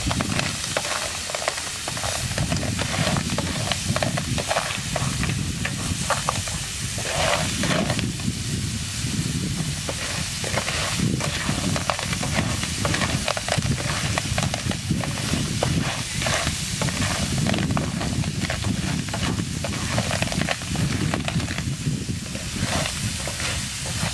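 Small shellfish in their shells being stirred with a metal spatula in a frying pan on a portable gas stove. The shells clatter and scrape against the pan in a rapid, uneven stream of clicks over a steady sizzle.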